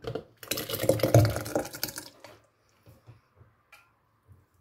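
Cooked tomatoes in their juice poured from a scoop through a plastic funnel into a glass jar, a wet splashing pour lasting about two seconds, followed by a few faint small knocks.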